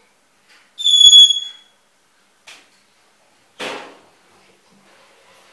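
Caged pet bird calling: one loud, clear high whistle about a second in, a short chirp, then a harsh, raspy squawk a little after the middle.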